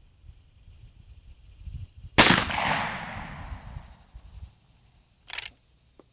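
A single shot from a Rossi R92 lever-action rifle firing a .45 Colt handload: a sharp crack about two seconds in that rings out and dies away over about two seconds. A short, quieter clatter follows about three seconds later.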